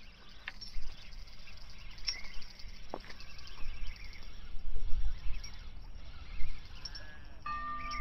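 Wind gusting on the microphone with small birds chirping. A single click about three seconds in, and a steady tone starts near the end.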